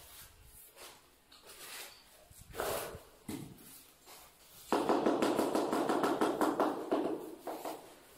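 A few light knocks and scuffs, then, about halfway through, roughly three seconds of steady gritty scraping: a large porcelain floor tile being slid and pressed into its bed of tile adhesive by gloved hands.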